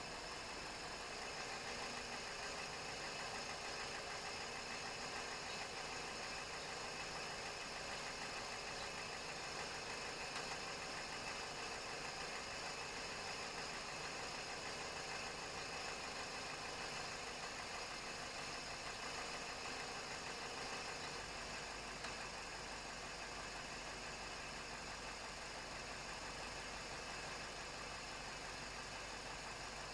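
Toyota Raum's petrol engine idling steadily, with a slight drop in level about two-thirds of the way through.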